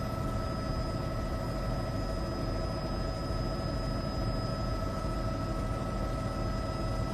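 Helicopter running in flight: a steady, unchanging drone with constant high whine tones over it.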